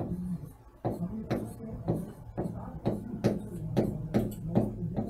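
Pen tapping and scraping on a writing board with each stroke as a word is written: a run of small sharp clicks, about two a second, starting about a second in.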